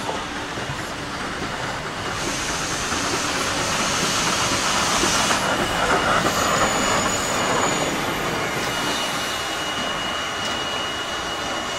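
Steam locomotive DT668 rolling slowly past on the track, growing louder as it comes closest around the middle. A thin, high, steady squeal joins in about halfway through and carries on.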